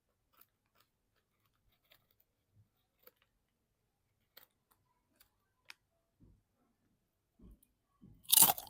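Faint scattered clicks and small crunches from potato crackers being chewed as quietly as possible, a few seconds apart. Near the end comes a short, loud burst of noise.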